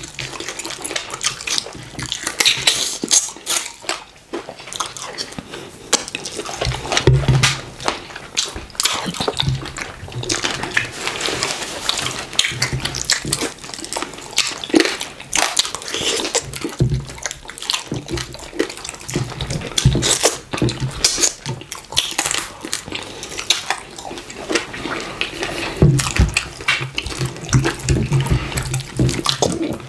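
Wet, sticky hand-eating sounds of fufu with slimy okra soup: fingers squelching through the soup, chewing and lip smacking, in a fast irregular patter of small clicks.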